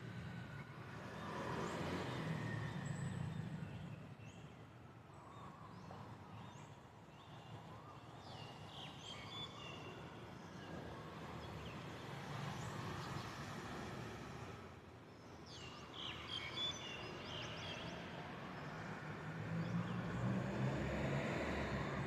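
City traffic rumbling steadily, swelling near the start and again near the end, with bursts of short high bird chirps about eight seconds in and again around fifteen seconds in.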